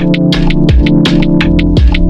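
Electronic background music with a steady beat over held synth chords.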